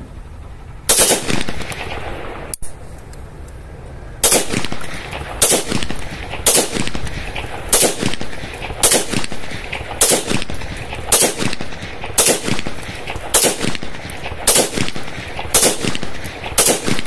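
.44 bore AK-47-style rifle fired shot by shot in single-fire mode: thirteen sharp gunshots, one, then a pause of about three seconds, then a steady string of about one shot a second, each with a short echoing tail.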